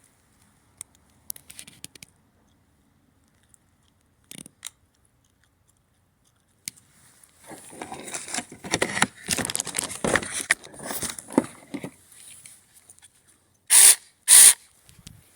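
Handling of a small cordless mini chainsaw and its battery pack: a few clicks, then several seconds of scraping and clattering, and near the end two short, very loud bursts.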